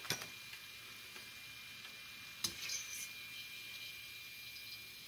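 Oliebollen (Dutch doughnut fritters) frying in hot oil: a steady sizzling hiss. Two sharp clicks cut through it, one just after the start and one about halfway.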